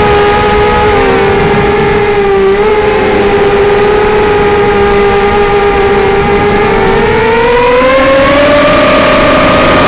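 Quadcopter's brushless motors (Emax 1804 2300kv with 5x3 props) whining steadily in flight, several close pitches beating together. About seven seconds in, the pitch rises as the throttle goes up.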